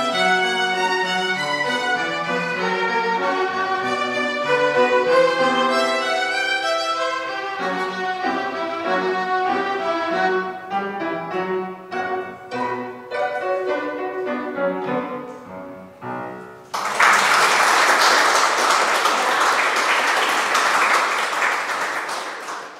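Three violins with piano accompaniment play the closing bars of a piece, ending in a few separate detached notes about 16 seconds in. Audience applause follows at once and fades out near the end.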